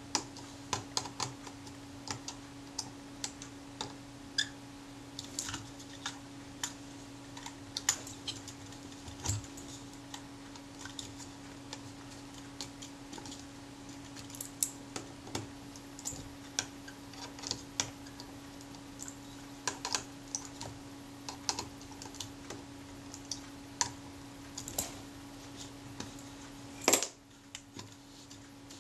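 Scattered small clicks and taps of a screwdriver and fingers working on the metal body and lens panel of a Rolleiflex Automat TLR camera, slackening screws and nudging the panel round, with one louder knock near the end. A steady low hum runs underneath.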